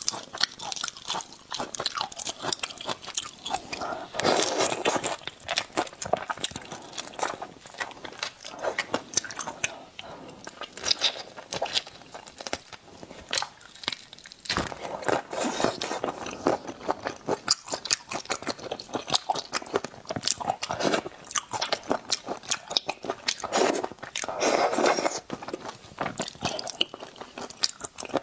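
Close-miked eating of raw marinated prawns: shells crackling as they are peeled and bitten, with wet crunching and chewing. It comes in a steady run of small crackles, with louder, fuller bites a few times.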